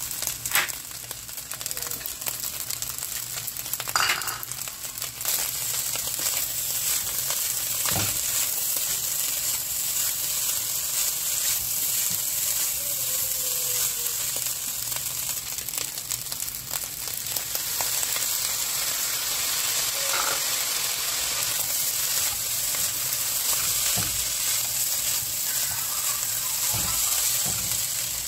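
Fried rice with mixed vegetables sizzling in a nonstick frying pan as a spatula stirs and tosses it, with a few sharp knocks of the spatula against the pan. The sizzle gets louder about five seconds in.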